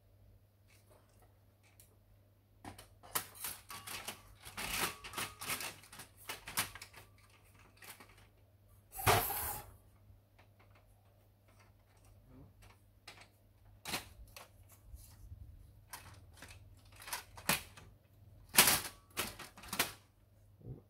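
Irregular clicks and knocks of plastic parts being handled and fitted during reassembly of a Canon LBP251 laser printer, with one louder half-second noise about nine seconds in.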